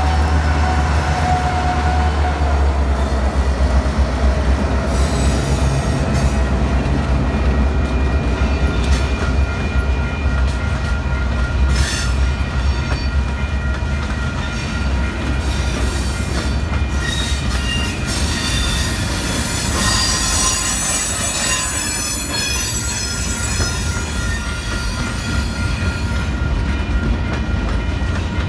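EMD diesel road-switcher locomotives rumbling past at close range, the engine rumble easing after the first several seconds as the last unit goes by. Freight cars then roll past with clanks and knocks and high wheel squeal, loudest about two-thirds of the way through.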